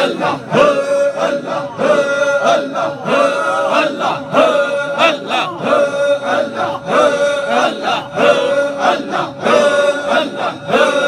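Men's voices chanting a devotional refrain together, the phrase restarting about every second and a half with a held note at the start of each.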